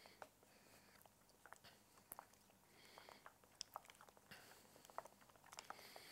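Faint, irregular clicks and scrapes of a utensil stirring thick melted dark chocolate in a stainless-steel mixing bowl, as the tabled, crystallising chocolate is worked back into the warm mass during tempering.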